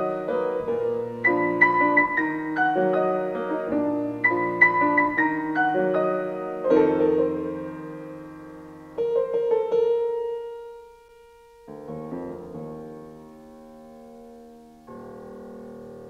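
Grand piano playing a lyrical melody in a repeating phrase, then slowing to a few soft held chords that ring out and fade.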